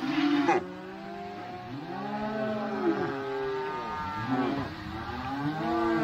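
Many freshly weaned Black Angus calves bawling over one another, the distress calls of calves separated from their mothers. Their overlapping calls rise and fall in pitch.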